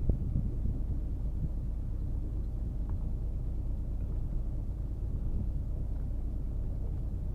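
Fishing boat's engine running with a steady low rumble, and a sharp knock right at the start.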